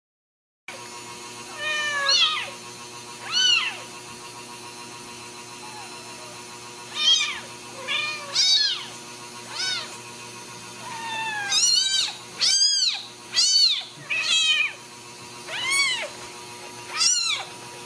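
Newborn Ragdoll kitten mewing: a string of short, high, arching cries, more frequent in the second half, over a faint steady hum.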